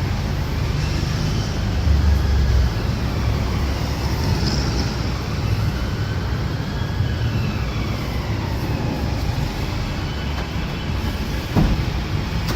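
Steady low rumble of heavy street traffic, with a police siren faintly wailing up and down in the second half, and a short thud about a second before the end.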